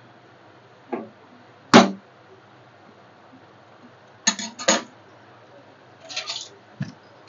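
A spoon knocking and scraping against a cooking pot while ragi flour is mixed into hot water to make dough: a few separate knocks, the loudest about two seconds in, a quick pair a little after four seconds, and a short run of scrapes near the end.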